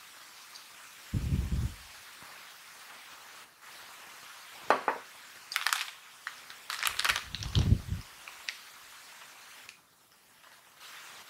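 Coated peanuts (garlic cracker nuts) clicking and rattling against a glass food container as fingers pick through them, with a few sharp clicks in a cluster past the middle. Two dull low thumps, about a second in and again near the end.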